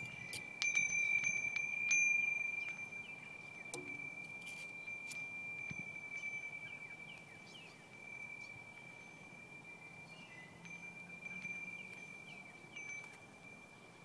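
Small metal bells of a hummingbird wind chime tinkling as it sways: one high, steady bell tone rings throughout. It is struck afresh a few times in the first two seconds, then slowly fades.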